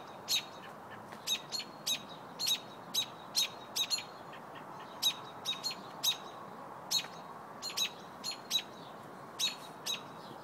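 American robin giving sharp, repeated chirping calls, about two a second and often in quick pairs: the robin's alarm call, given near its nest.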